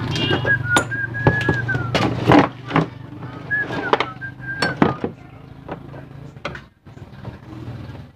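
A person whistling two short wavering phrases while handling a TV set, with sharp clicks and knocks from the plastic casing and a screwdriver. A low hum stops about two seconds in.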